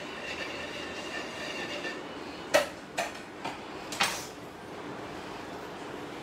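Four sharp clicks and clatters of metal cake-decorating tools, a palette knife set down and another tool picked up. The first, about two and a half seconds in, is the loudest.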